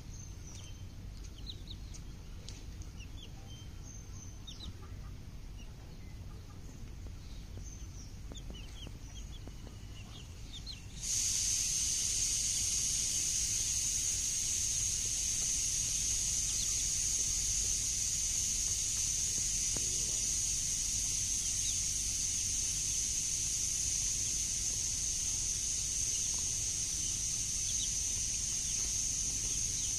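Domestic chicks peeping in short, faint high chirps. About eleven seconds in, a loud, steady high hiss starts abruptly and covers the rest.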